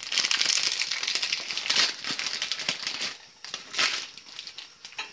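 Shiny foil packet crinkling as it is handled in the hands, loudest in the first three seconds, with one more burst of crinkling near four seconds before it dies down.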